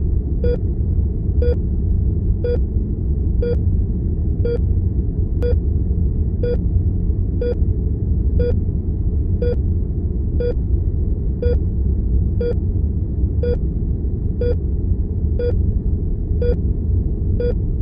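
Patient heart monitor beeping steadily, one short beep about every second, over a constant low hum and rumble of room tone.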